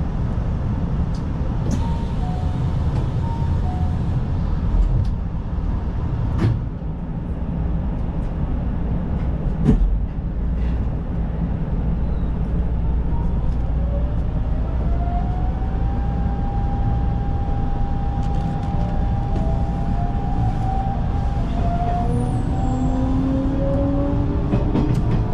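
Electric commuter train heard from inside the car: a steady low running rumble with a couple of sharp knocks. From about halfway a motor whine rises in pitch and then holds as the train picks up speed, and further rising whines come in near the end.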